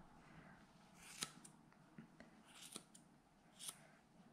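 Small grooming scissors snipping angora rabbit wool: a handful of faint, scattered snips, the sharpest about a second in, near the three-quarter mark and toward the end.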